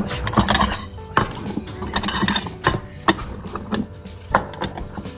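Irregular sharp clinks and knocks of feeding dishes being handled, about one every second, over faint background music.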